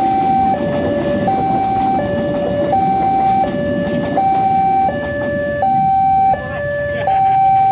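Railway level-crossing warning alarm sounding a steady two-tone high-low signal that alternates about every 0.7 seconds. Under it is the rumble of passenger coaches rolling past over the rails, which fades as the train clears.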